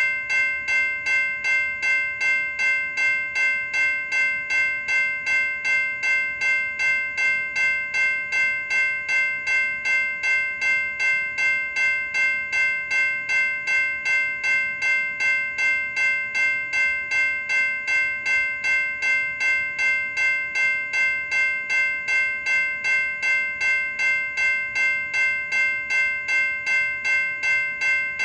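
General Signals Type 2 electronic railroad crossing bell ringing continuously: a steady, even run of electronic dings, a little over two a second, each a bright clang of several tones at once.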